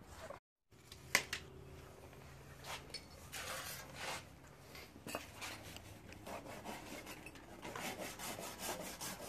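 Handsaw cutting through a piece of timber in a series of faint back-and-forth strokes. A single sharp click about a second in.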